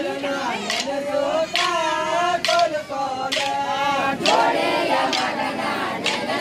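A group of voices singing a folk song together, with a sharp percussive beat about once a second.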